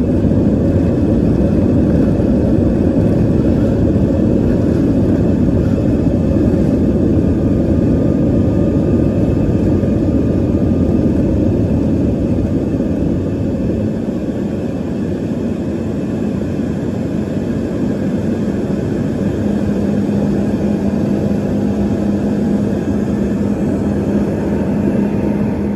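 Steady low rumble of a large jet's turbofan engines in cruise, heard from inside the cabin. A low steady hum joins in about twenty seconds in.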